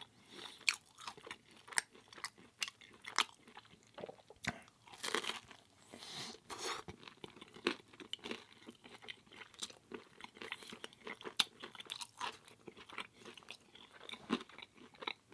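Close-up chewing of baked pizza: crisp, irregular crunches and clicks of crust between the teeth, with a few louder bites.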